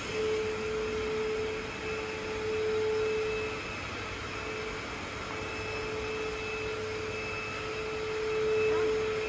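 Steady machine hum with a held mid-pitched tone that drops out for a couple of seconds in the middle and returns, over a faint high whine, like a running fan or blower.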